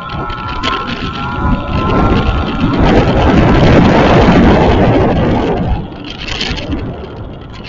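Road and wind noise from a vehicle driving along, swelling loud about a second and a half in and dropping off suddenly near the six-second mark.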